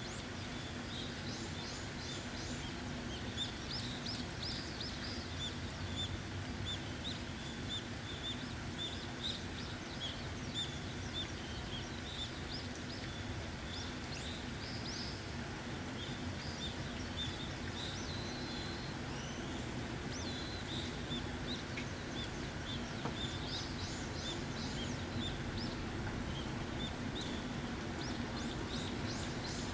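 Steady rain falling, with many small birds chirping in short, high calls throughout.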